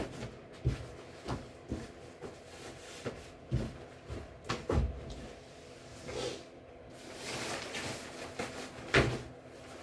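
Black ski trousers being handled and lifted off a pile of clothes: the fabric rustles and swishes, with several soft knocks from the handling and a louder one near the end.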